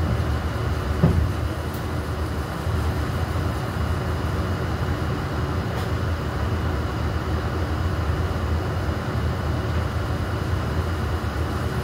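Steady low rumble of background noise with a faint even hum above it, and a single short knock about a second in.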